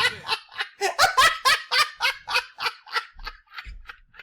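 A man laughing hard in a quick run of short ha-ha pulses, about four a second, trailing off toward the end.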